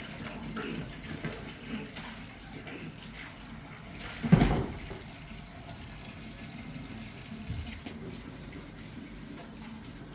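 Running water splashing, with one loud knock about four seconds in.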